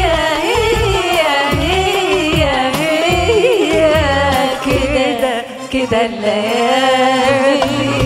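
Arabic tarab music: an ornamented, wavering melody with singing over regular low drum beats.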